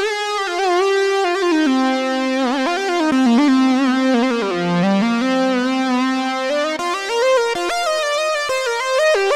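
Yamaha AN1x virtual analog synthesizer playing a bright melodic line, its notes sliding in pitch from one to the next. The line falls lower through the middle and climbs back up near the end.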